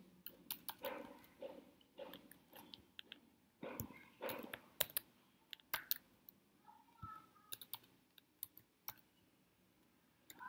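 Computer keyboard typing: faint, irregular keystroke clicks, coming thicker in the first half and more sparsely later on.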